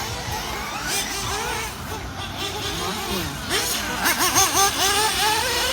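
Nitro RC car engines buzzing, their pitch rising and falling quickly as the throttle is worked, getting louder and busier about three and a half seconds in.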